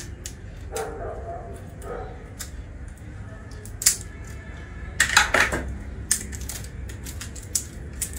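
Thin plastic protective sheet crinkling and rustling as it is pulled off a flat-screen TV panel, in scattered sharp crackles with a louder burst of rustling about five seconds in.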